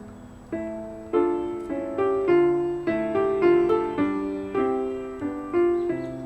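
Solo piano music: a gentle melody over chords, each note struck and fading, with new notes coming about every half second after a short quiet start.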